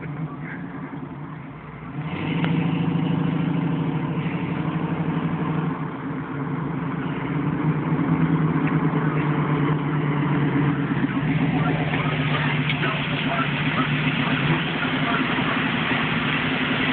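Muscle car's engine running with a steady, pulsing exhaust note, getting much louder about two seconds in as the car comes close.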